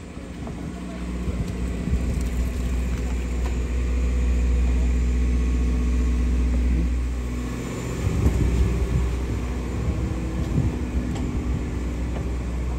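Sightseeing boat's engine running with a steady deep rumble and hum, dipping briefly and turning rougher about eight seconds in.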